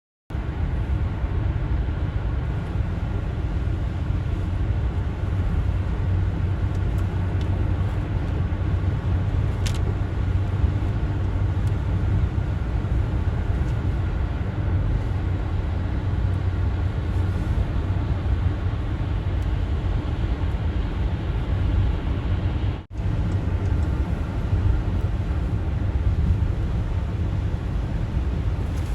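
Car driving at highway speed: steady engine and tyre rumble. It cuts in abruptly just after the start and drops out for a moment about twenty-three seconds in.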